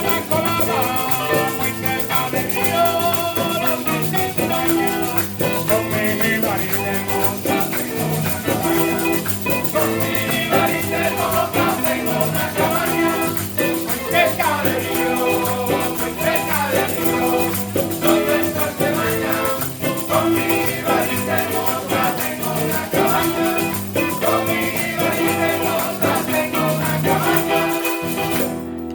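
A Latin American band playing, with singing over a shaken rattle such as maracas. The music stops right at the end.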